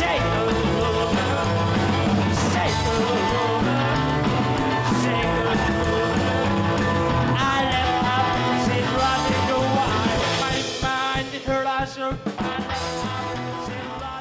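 Background music: a rock and roll song with singing over guitar and drums, thinning out with brief breaks in its last few seconds and starting to fade near the end.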